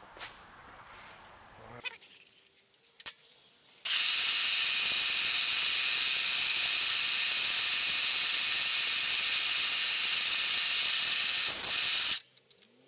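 Loud steady hiss of an air-blast or mist-coolant nozzle on a milling machine, switched on about four seconds in while a hole is center-drilled in an aluminium hub, and cut off sharply about eight seconds later. A few light clicks come before it.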